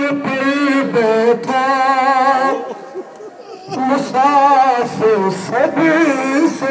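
Urdu noha, a Shia lament, sung unaccompanied by a male reciter in long held, wavering notes, with a short break about three seconds in.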